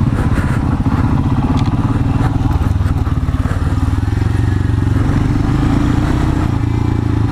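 Royal Enfield Himalayan's 411 cc single-cylinder engine running steadily under way on a dirt track, heard from the rider's seat.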